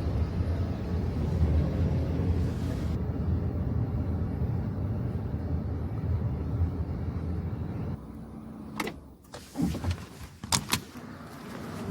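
Steady low rumble of a running vehicle that drops away about eight seconds in, followed by several sharp clicks and knocks.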